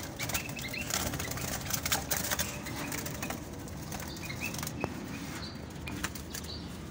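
Diamond doves flapping their wings in a wire cage as a hand reaches in and catches one, with short clatters and a few brief high bird chirps.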